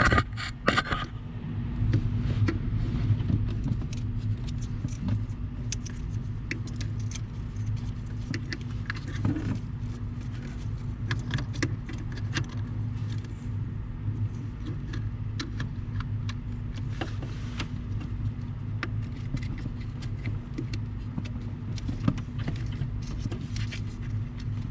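A steady low mechanical hum, with many small clicks and rattles from hands plugging in a new brake light switch and clipping it onto the brake pedal rod.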